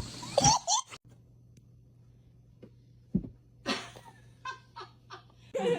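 A cat's short meows, a few brief calls with a dull thump a little after three seconds in.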